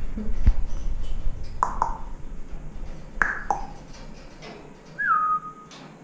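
African grey parrot whistling: a couple of short falling chirps, then near the end one longer whistle that drops in pitch and holds steady. A light knock about half a second in.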